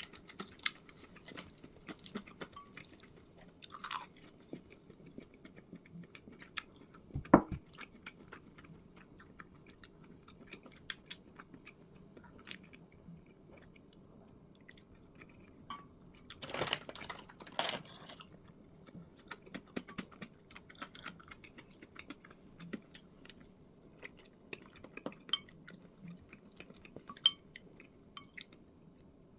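A person chewing and eating close to the microphone, with many small clicks of utensils over a low steady hum. There is a sharp knock about seven seconds in and a short louder stretch a little past halfway.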